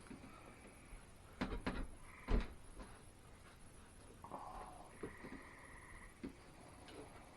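Wood chisel paring out a rabbet in a board by hand: a few short knocks and scrapes, the strongest three coming in quick succession between about one and a half and two and a half seconds in, then fainter ones.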